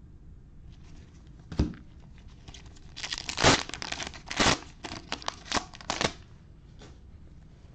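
A trading card pack's plastic wrapper being torn open and crinkled by hand: one short rustle, then a few seconds of tearing and crinkling, loudest about three and a half to four and a half seconds in.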